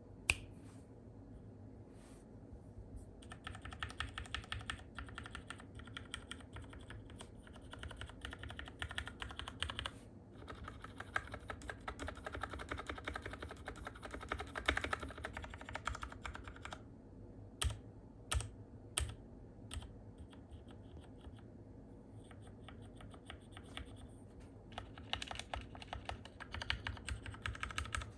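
Typing on a Keychron K6 mechanical keyboard: fast runs of key clacks with short pauses, and three louder single keystrokes about two-thirds of the way through.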